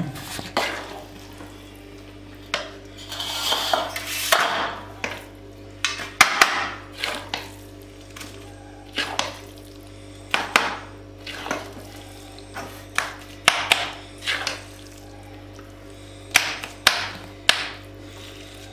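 Steel spoon scraping and clanking against a steel bowl and a steel thali as sticky ajwain-laddu mixture is scooped out and spread, in irregular knocks and scrapes. A steady low hum runs underneath.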